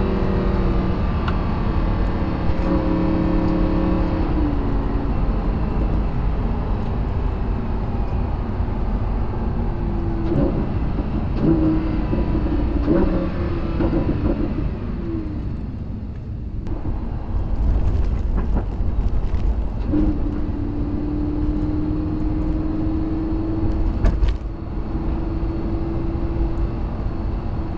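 Lamborghini Huracan LP610-4's V10 heard from inside the cabin while driving, its note shifting up and down through the first half. It drops away briefly about halfway through, then settles into a steady drone, with a sharp knock a few seconds before the end.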